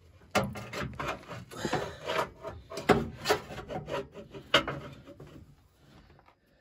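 Ratchet wrench with a pipe breaker bar over its handle being worked back and forth on a stuck nut: irregular metallic clicks and scraping that stop near the end.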